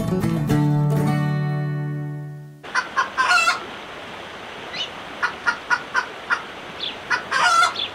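Acoustic guitar music ends on a ringing chord. Then, over a steady rush of flowing water, chickens cluck and a rooster crows twice, once about three seconds in and once near the end, with short rising chirps in between.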